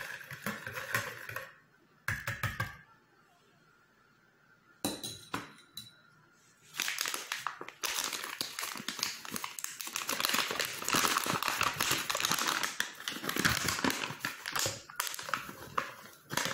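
A fork briefly stirs liquid in a plastic bowl, then after a quiet pause a flour bag crinkles and rustles steadily as it is opened and handled.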